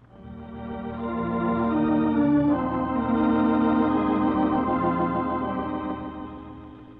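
Radio-drama musical bridge played on organ: held chords that swell in, shift to a new chord about two and a half seconds in, and fade away near the end, marking a change of scene.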